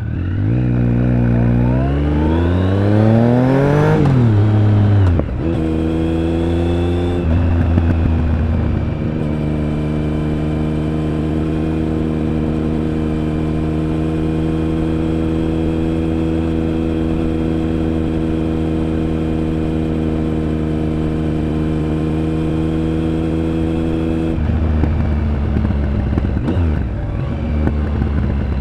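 Triumph Speed Triple 1050's three-cylinder engine and exhaust accelerating hard. The pitch rises for about four seconds, drops at a gear change and climbs again. It then holds a steady pitch at cruising speed for about fifteen seconds before the throttle closes and it falls back to a low note near the end.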